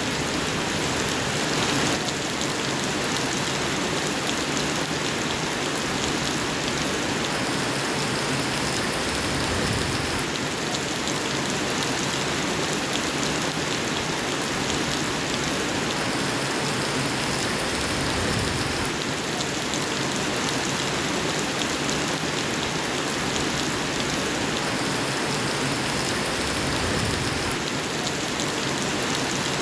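Steady rain falling, a dense even hiss of drops with no pauses or sudden events.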